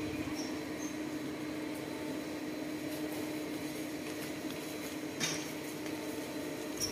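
A steady machine hum holding one pitch over an even noise, with a short click about five seconds in.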